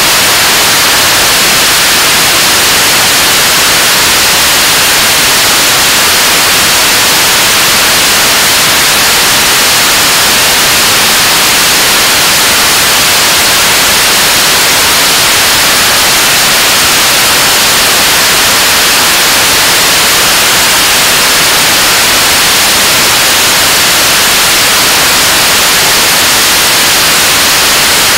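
7-tonf-class kerosene/liquid-oxygen rocket engine for the Korean launch vehicle firing at steady thrust in a hot-fire test: a loud, even rushing noise with no change in level or pitch.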